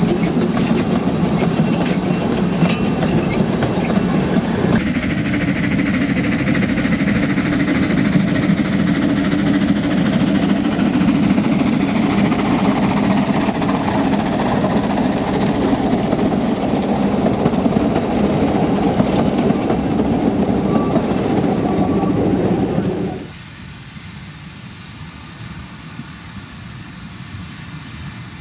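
Narrow-gauge steam train passing close by: wooden carriages rolling over the rails with a steady rumble and wheel clatter. The sound changes abruptly about five seconds in as another passing train takes over. About 23 seconds in it drops sharply to a much quieter background.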